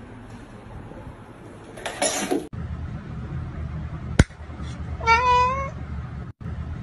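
A brief scuffling noise, then a single sharp click from a pet-food can's pull-tab beside a dozing cat, and about a second later the cat meows once, a short call under a second long.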